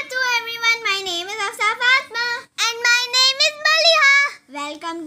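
A child singing in a high voice, holding long, wavering notes, with short breaks between phrases.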